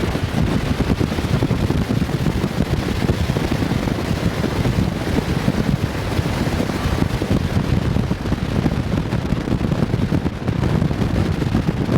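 Wind buffeting the microphone: a steady, low, fluttering rushing noise with no breaks.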